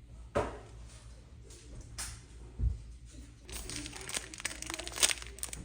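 Packaging being handled and crinkled: a few separate knocks and rustles, then rapid, dense crinkling over the last two seconds.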